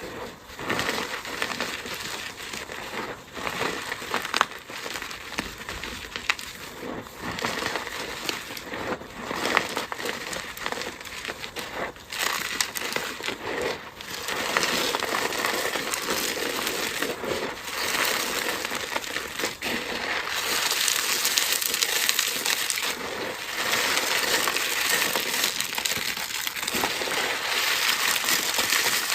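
Dry, crumbly material being crushed: dense crunching and crackling, with many sharp cracks in the first half, becoming a steadier, brighter crunching in the second half.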